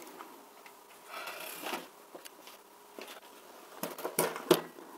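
Handling noise from a DVD player's sheet-metal chassis and plastic front panel as it is gripped and turned over: a brief scraping rustle about a second in, then scattered clicks and knocks, the loudest near the end.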